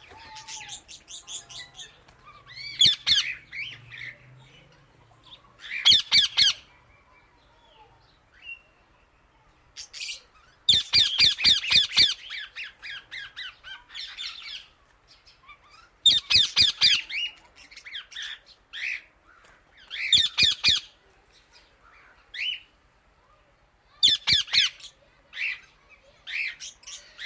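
Indian ringneck parrot calling loud: bouts of rapid, harsh, high-pitched repeated notes every few seconds, with softer single chirps between the bouts.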